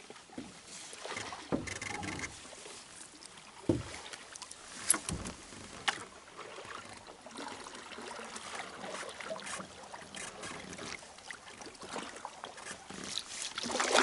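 Canoe paddling: a wooden paddle dipping and pulling through calm water, with swishing and dripping strokes. There are a few sharp knocks in the first six seconds, and the strokes get louder near the end.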